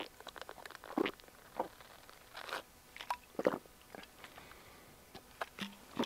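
A person drinking from a plastic bottle: faint gulps and small clicks of swallowing, with light crinkles of the bottle, coming irregularly every half second to a second.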